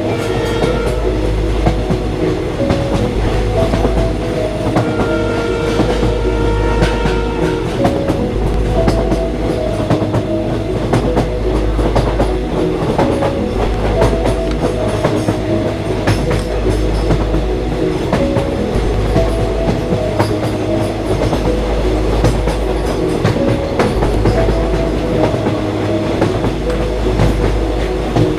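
Train running along the rails with a steady roar and the clickety-clack of wheels over rail joints, with a low rumble that swells and fades every couple of seconds.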